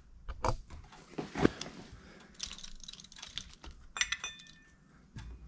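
Light clicks and clinks of a screwdriver and small metal parts against a Yamaha RZ350's carburetors as the main jets are being swapped. About four seconds in, one metallic clink rings briefly.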